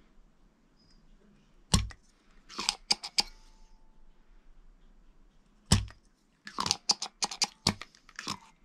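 Two sharp clacks about four seconds apart, each followed by quick runs of small clicks and taps: soldering tools and wires being handled while solder is removed from wire joints.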